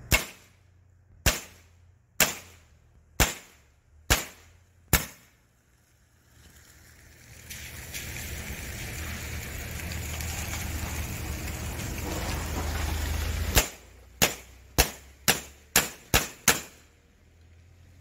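Evanix semi-automatic air pistol firing sharp cracks: six shots about a second apart, then after a pause a faster string of seven shots about two a second. Between the two strings a rushing hiss rises for about six seconds and cuts off at the first shot of the second string.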